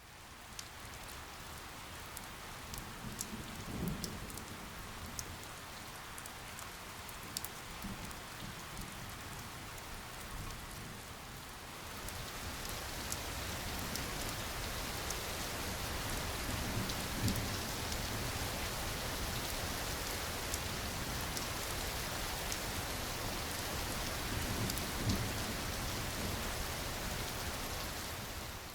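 Steady rain falling, heavier from about twelve seconds in, with a few low rumbles of distant thunder.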